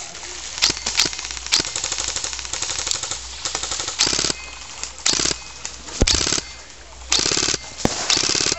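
Airsoft rifles firing on full auto, a fast rattle of shots. The firing is near-continuous at first, then breaks into short bursts of about half a second, roughly one a second.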